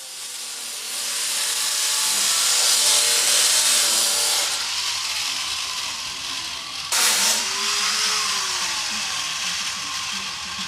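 A power tool running with a steady hiss that swells in over the first two seconds, with a sudden louder burst about seven seconds in.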